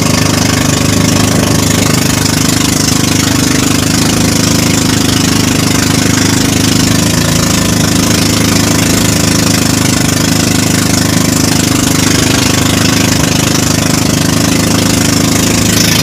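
Engine of a motorized outrigger boat (bangka) running steadily under way: a constant, even drone with a hiss of wind and water over it.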